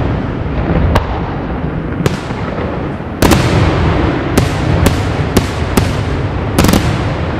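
Daytime fireworks aerial shells bursting overhead in a string of about nine sharp bangs, coming closer together in the second half, over a continuous low rumble.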